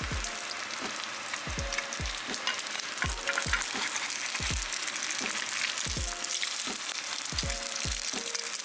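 An egg frying in oil in a nonstick pan, sizzling and crackling steadily. Under it, background music with deep bass drum hits about every second and a half.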